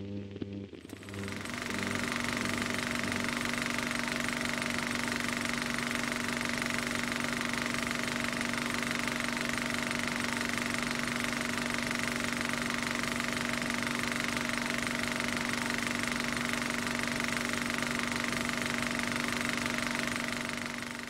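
The last of a piece of music dies away, then from about a second and a half in a steady mechanical running noise holds unchanged: a hiss with a low hum and a high whine.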